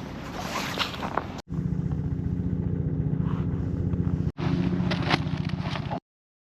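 A small engine running steadily with an even pulse, heard in short pieces that cut off abruptly.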